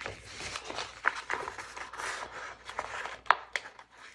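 Paper sticker sheet rustling and crinkling as fingertips bend it and pick at a sticker's edge to peel it off, with several sharp little clicks, the sharpest about three seconds in.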